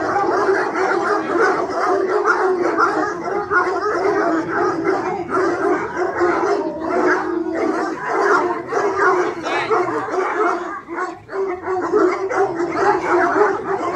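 A large pack of tricolour Anglo-French hounds baying all together in a continuous din of many overlapping voices. The hounds are excited at feeding time, waiting to be let at their food.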